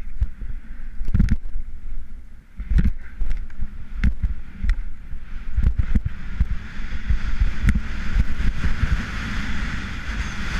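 Skiing through powder on Atomic Twins skis: the skis hiss through the snow, with many short knocks and bumps, under heavy wind buffeting on the camera's microphone. The hiss grows fuller in the second half.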